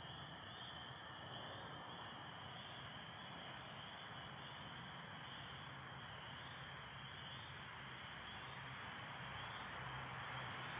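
Dense chorus of spring peepers calling steadily, their peeps merging into one continuous high-pitched shimmer. A faint steady low hum runs underneath.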